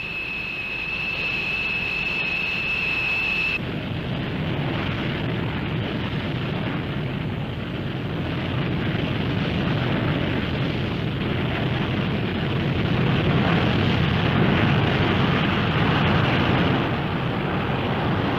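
YF-16 prototype's Pratt & Whitney F100 jet engine running while the fighter taxis. For the first few seconds a steady high whine sits over the engine noise; about three and a half seconds in the sound changes suddenly to a fuller rushing engine noise that grows a little louder.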